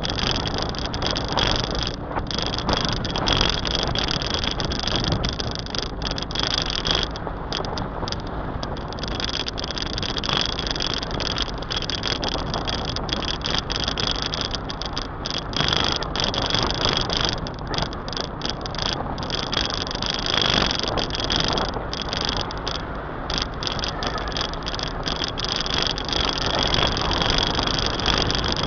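A car driving along: steady road and wind noise with the engine running underneath, and a thin steady high tone over it that cuts out for moments now and then.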